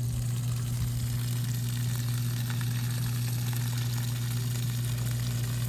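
Water from a garden hose pouring and splashing steadily onto the ground, a constant hiss, with a steady low hum beneath it.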